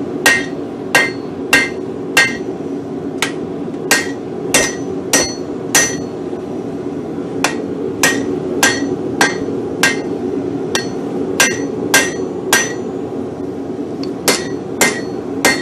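Hand hammer striking hot steel on an anvil, knocking the edges off the blank: steady blows about every 0.6 s, each with a bright metallic ring, in runs broken by a few short pauses.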